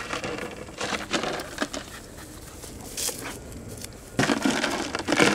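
Presa Canario puppies play-fighting: irregular bursts of scuffling and rough play noise, about five of them, the longest and loudest near the end while two puppies tug at a rope toy.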